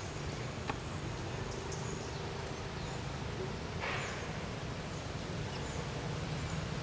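Steady low outdoor rumble with a few faint high bird chirps, a single click under a second in, and a short rustle about four seconds in, as infant macaques scramble on the stone.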